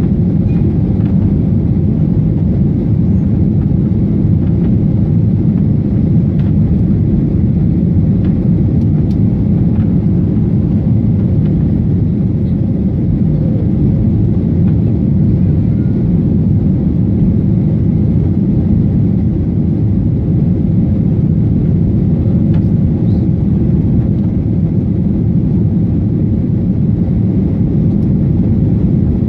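Cabin noise inside a Boeing 737-800 at takeoff and initial climb: a loud, steady, deep rumble from its CFM56-7B turbofan engines at takeoff thrust and air rushing past the fuselage.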